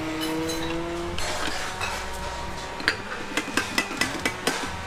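A motor vehicle's engine note rising and then holding steady, stopping about a second in, followed near the end by a quick, irregular run of light clinks and knocks from kitchen utensils.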